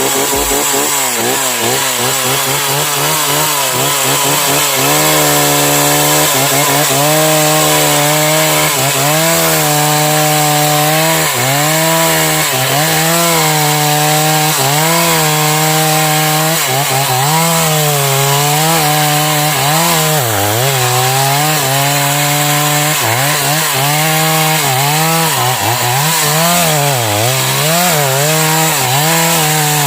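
Stihl MS 381 two-stroke chainsaw running at full throttle while cutting into a sengon (albizia) trunk. Its pitch dips again and again as the chain bogs under load in the cut.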